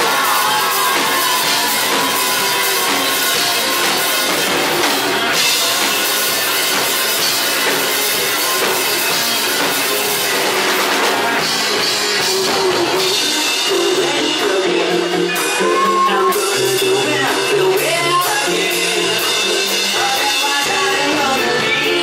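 A rock band playing live: drum kit, electric bass and guitar, with a male lead vocal sung over the band.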